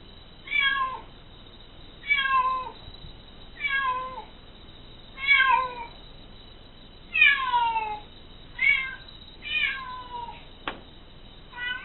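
Mother cat meowing over and over, about eight drawn-out calls that fall in pitch, one every second and a half or so: she is calling for her missing kittens. A single sharp click comes near the end.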